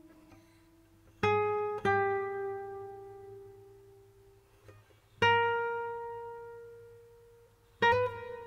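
Background music: slow, sparse plucked guitar notes, about four in all, each left to ring out and fade.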